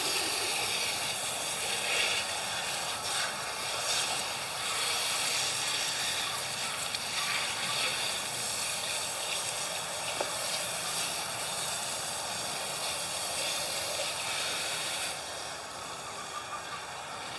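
Water spraying from a garden hose nozzle onto a plucked, gutted chicken carcass and a wet wooden tabletop, a steady hiss with spatter. It gets quieter about fifteen seconds in.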